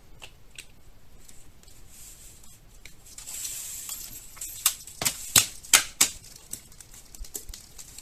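Hard plastic clicking and knocking from a 3D-printed Knives4 holder with a Victorinox Huntsman pocket knife in it as it is lifted and handled by its cord: a brief rustle, then about five sharp clicks in quick succession, then a few fainter ticks.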